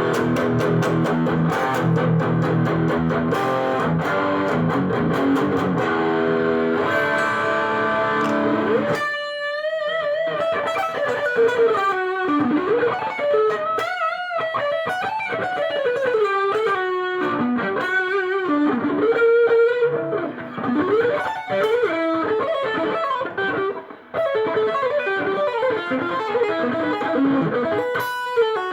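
Electric guitar, a Chinese-made copy of an Ibanez JEM, playing a full passage with low notes underneath. About nine seconds in it switches to a single-note lead line with string bends and vibrato.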